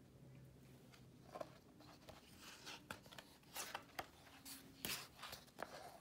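Faint rustle and scrape of a hardcover picture book's paper pages being handled and turned, as a string of short scrapes in the second half.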